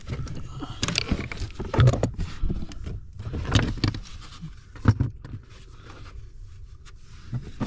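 Irregular knocks, clicks and rustling as a wrench is handled and a person shifts about inside a pickup truck's cab, with a few sharper knocks along the way.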